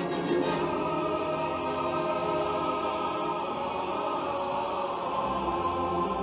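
Classical-style orchestral music with held notes, played from a vinyl record on a Heyday belt-drive turntable.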